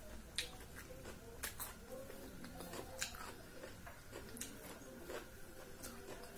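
Close-up eating sounds: chewing and wet mouth smacks as rice and curry are eaten by hand, with about half a dozen sharp clicks scattered through.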